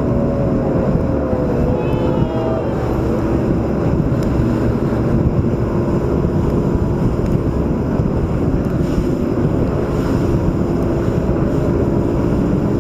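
A tour boat's motor running steadily, with wind rushing over the microphone.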